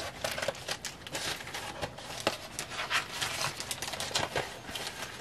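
Plastic Ziploc bag crinkling and rustling in the hands, with scattered small clicks, as a necklace is slid back into it.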